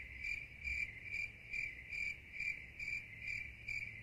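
Cricket chirping in the soundtrack of an AI-generated video clip (Google Veo 3 in Flow): a steady high trill that pulses about twice a second, and no voice.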